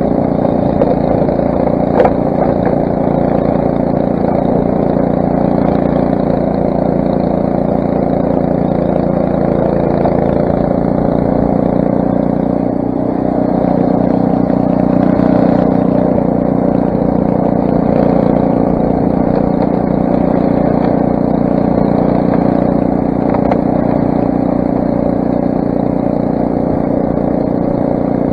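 Craftsman snowblower's 6 hp Briggs & Stratton single-cylinder engine running steadily, with a sharp click about two seconds in and a change in the engine note about halfway through.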